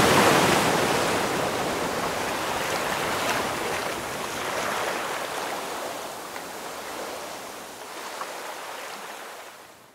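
Ocean surf washing in a steady hiss with a faint fizz, slowly fading out.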